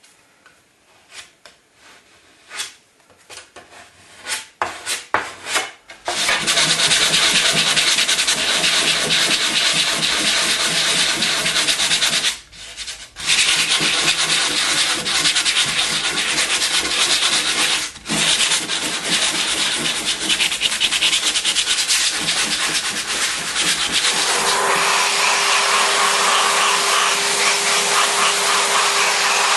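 A few light scrapes and taps of a putty knife spreading filler over screw heads in chipboard, then a power sander runs steadily over the filled chipboard, stopping briefly twice. Near the end a vacuum cleaner takes over with a steady hum, sucking up the sanding dust.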